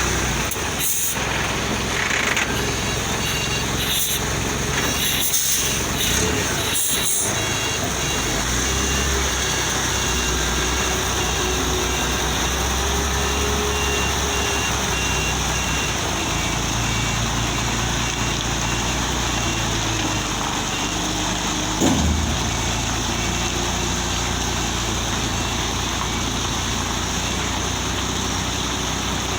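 A heavy truck's engine running steadily in road traffic, with a run of short evenly spaced high beeps from about 3 to 16 seconds in and a single sharp knock about 22 seconds in.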